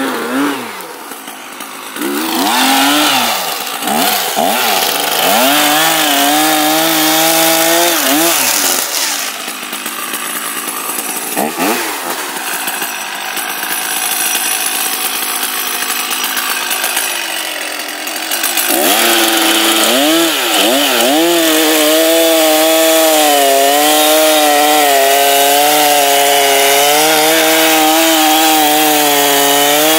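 Stihl MS 880, a large two-stroke chainsaw, cutting into a large oak log at full throttle. The engine revs up and down several times at first and runs rougher and quieter in the middle stretch. About two-thirds through it revs back up and holds a steady high-revving cut, its pitch wavering slightly as the chain bites into the wood.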